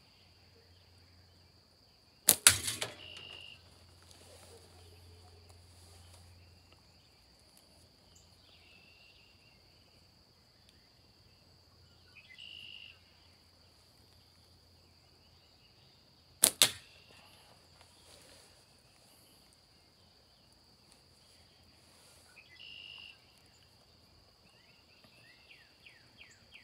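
Two slingshot shots about fourteen seconds apart, each a sharp crack as the bands release a 5/16-inch ball and it strikes at the target. A steady high insect drone runs underneath.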